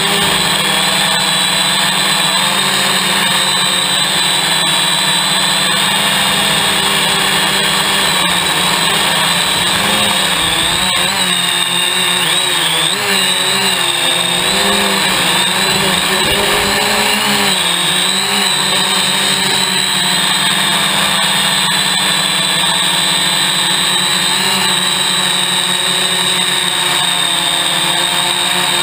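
Hexacopter's six electric motors and propellers whining steadily, heard from the camera mounted on the craft. The pitch wavers and shifts through the middle stretch as the motor speeds change, then settles again.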